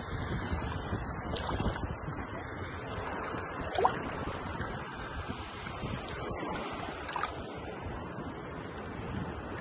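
Steady rushing noise, with a brief rising chirp about four seconds in.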